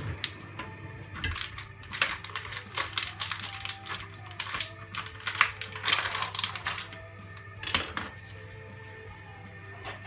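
Quick sharp clicks and clatters from kitchen handling at the stove and counter: a couple of clicks at the start as the stove knob is turned, then a dense run of small clicks and taps that fades out after about seven seconds, with one more clatter near the end.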